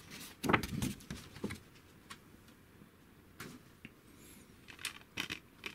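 Handling of a paper poster and a plastic Blu-ray case on a desk: rustling with scattered clicks and taps, bunched about half a second in and again near the end.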